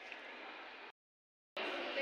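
Faint background chatter of people in a large hall. About a second in it cuts to dead silence for about half a second, then comes back louder.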